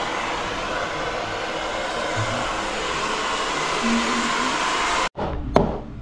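Handheld hair dryer blowing steadily, a constant rush of air with a faint motor whine. It cuts off abruptly about five seconds in, and a single sharp click follows.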